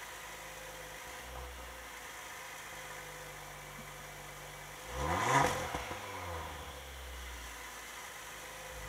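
2018 Audi RS5's 2.9-litre twin-turbo V6 idling, heard at the exhaust tip, with one quick rev about five seconds in that rises and drops back to idle.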